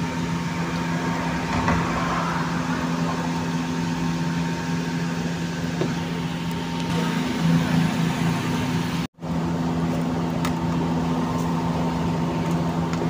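A steady machine hum with a low tone, like a motor running, cutting out for a split second about nine seconds in.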